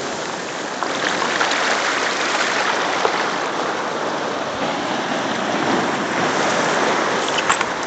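Sea surf washing in over a pebble beach: a steady hiss of foaming water, with a few light clicks near the end.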